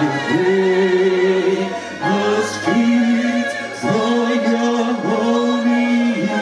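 A group of voices singing a church hymn together in long held notes, each lasting a second or more, with a slight waver in pitch.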